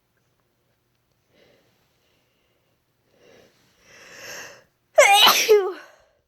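A woman's induced sneeze: a few faint breaths, a building, catching in-breath, then one loud voiced sneeze about five seconds in.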